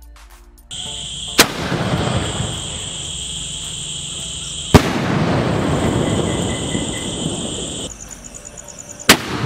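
Cock Brand medium sky shots (aerial firework shells) going off: three sharp bangs, about three to four seconds apart, with a loud rushing noise between them. Brief music at the very start.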